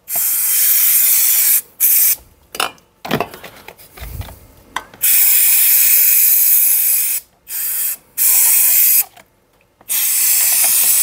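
Aerosol can of brake cleaner spraying in repeated hissing bursts of a second or two, with short gaps, as it blasts dirt out of a carburettor body. A few light clicks and knocks of the part being handled come in a gap about two to four seconds in.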